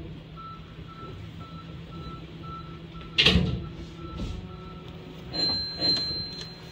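Hankyu 9000 series train standing at a station platform: a steady low hum with a short beep repeating about twice a second for some four seconds, a loud thud about three seconds in, then a high steady tone and a few knocks near the end.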